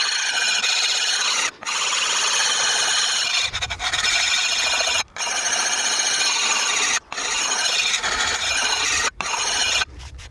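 Fine side of a Lansky puck sharpening stone rubbed along the steel edge of a field hoe in long grating strokes, about five, each broken by a brief pause, honing out the file marks.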